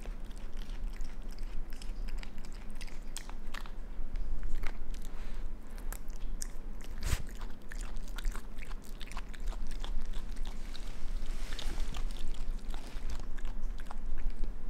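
Raccoon biting and chewing a Madagascar hissing cockroach: irregular crunching and clicking of the insect's shell, with one sharper crack about seven seconds in.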